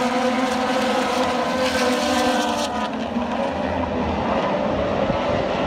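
Pack of racing motorcycles going past on the circuit, several high-revving engines at once, their pitches sliding as the bikes pass and draw away.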